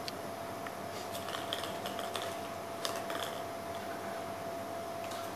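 Small plastic clicks and handling noises as a plastic draw capsule is pulled open and the paper slip inside handled, a handful of short clicks between about one and three and a half seconds in, over a faint steady hum.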